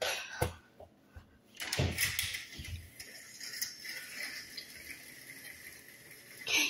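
A few knocks and clatters in the first two seconds, then plastic vertical blind slats being pushed aside by hand. A short hiss comes near the end.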